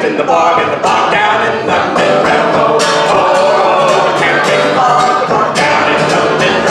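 Live folk song: voices singing to a strummed acoustic guitar, with a steady strumming rhythm.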